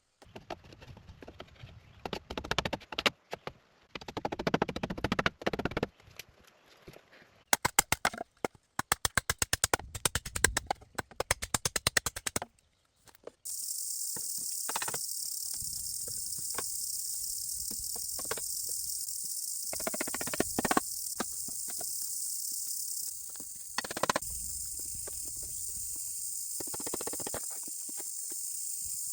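Irregular knocks and taps, then a quick run of strokes at about five a second for several seconds. About halfway in, a steady high-pitched buzz of insects sets in suddenly, with occasional knocks over it.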